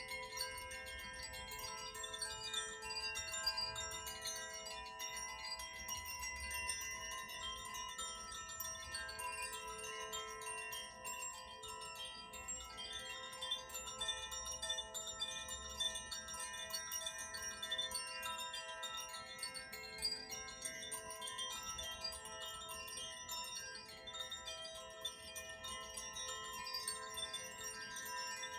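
Tuned sound-healing wind chimes of the Koshi and Zaphir kind, several at once, tinkling continuously with many overlapping ringing tones and no pause.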